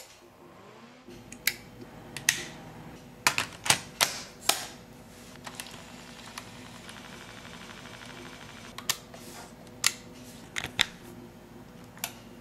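Portable cassette deck's piano-key transport buttons clicking and clunking as they are pressed, about a dozen sharp clicks in irregular groups over a steady low hum.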